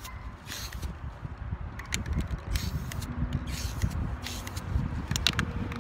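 Aerosol spray paint can spraying black paint in several short hissing bursts, each under half a second, with a few sharp clicks between them.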